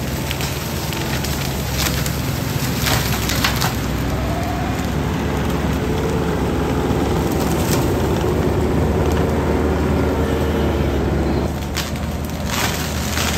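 New Holland compact track loader's diesel engine running under load while its Ironcraft disc forestry mulcher grinds brush. Several sharp cracks of splintering wood sound over the steady drone.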